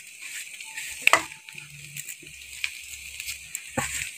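Shredded chicken for a pickle frying in a wok with a steady sizzle as chopped chillies are spooned in from a steel bowl. There is a single sharp click about a second in.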